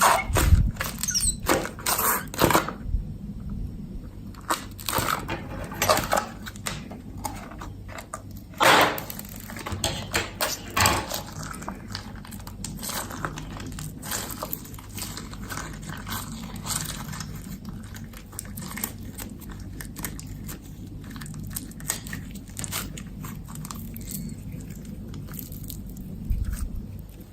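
Clear slime being mixed and squeezed, with sticky crackles, pops and crunches. They come thick and loud through the first half, then settle into a softer, steady crackle.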